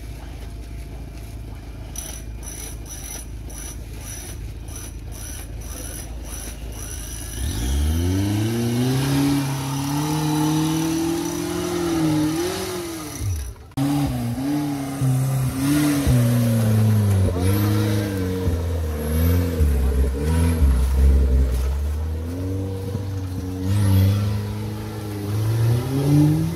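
Off-road 4x4's engine: a low rumble at first, then from about seven seconds in it is revved hard, its pitch climbing and falling again and again, with a brief break about halfway through.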